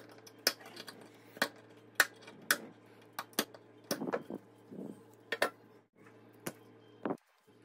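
Sharp, irregular cracks and clicks, about a dozen, as pliers grip and snap away pieces of a yellow XT60 plastic connector, with metal tool clinks and glove rustle between them.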